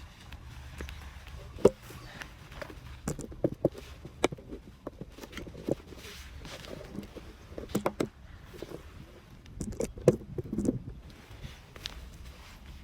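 Fishing tackle being handled: scattered sharp clicks and knocks, a few coming in short quick clusters, over a steady low rumble.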